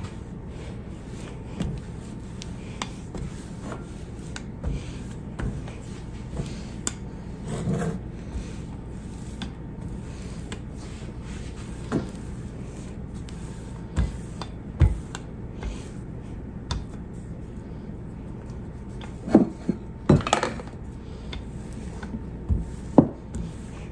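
Rolling pin being rolled back and forth over crumbly biscuit dough on a floured countertop: a soft rolling rub with scattered clicks and a few louder knocks as the pin and its handles bump the counter.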